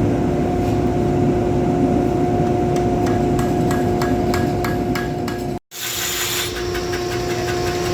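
Repeated hammer blows on a railroad spike being forged into a blade, a series of sharp knocks over a steady machine hum. The sound drops out suddenly about two thirds of the way through and resumes with a different background.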